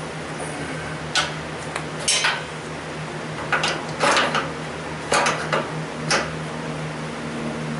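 Metal objects clinking and clattering in a run of sharp, separate knocks over a few seconds, above a steady low hum.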